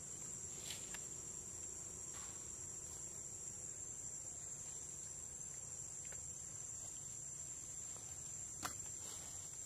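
Steady high-pitched drone of insects calling, with a sharp click near the end.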